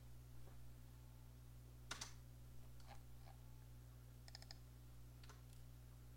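Faint clicks of a computer keyboard and mouse: one sharper click about two seconds in, then a few softer clicks, including a quick double-click, over a low steady hum.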